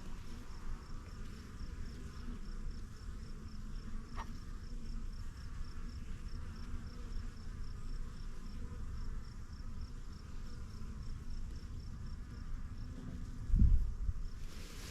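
Honeybees buzzing around their hive, over a steady high pulsing of about three or four beats a second. A dull thump near the end.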